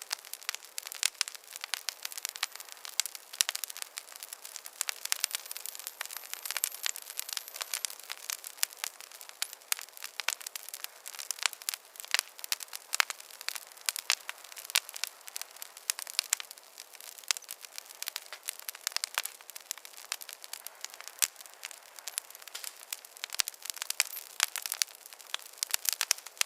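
Wood fire crackling in a fireplace: a dense, irregular run of sharp pops and snaps over a faint hiss.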